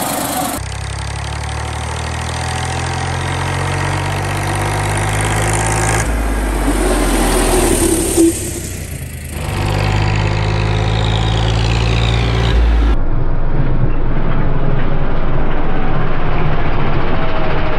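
Eicher 485 tractor's diesel engine running steadily, its sound changing abruptly between sections, with a brief loud thump about eight seconds in.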